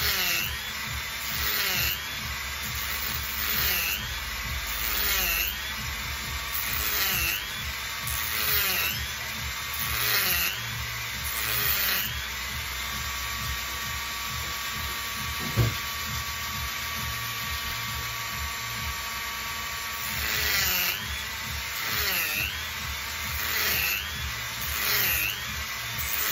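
Small handheld rotary tool running, its pitch dipping about once a second as the bit is pressed into the coconut shell to score the marked lines. It steadies for a while in the middle, where there is one short knock.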